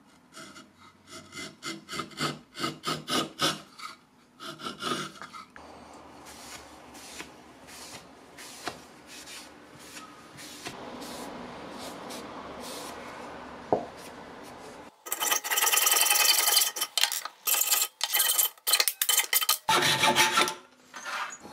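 Rhythmic hand-tool strokes rubbing on wood, then, in the last third, a hacksaw cutting a brass threaded rod clamped in a steel vise, with fast, loud rasping strokes.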